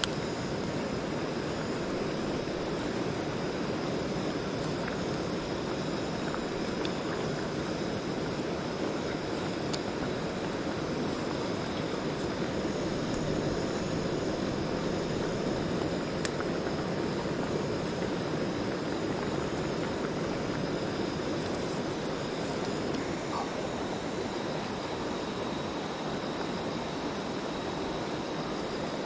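A mountain stream rushing over rocks, a steady even water noise without pauses.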